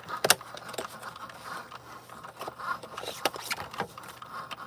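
Cricut Joy cutting machine cutting, with a faint wavering motor whine as the blade carriage moves. Over it come several sharp clicks and scrapes of card being handled, the loudest about a third of a second in and a cluster near the end.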